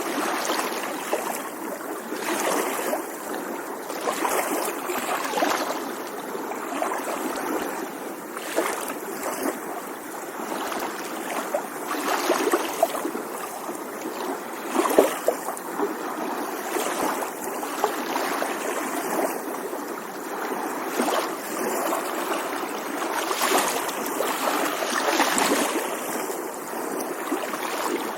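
Small waves lapping, the water noise swelling and easing every second or two, with one louder splash about halfway through.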